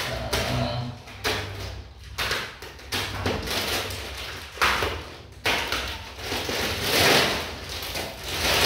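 Thick plastic wrapping being cut with scissors and pulled open by hand: a run of crinkling, rustling bursts, the loudest ones near the end.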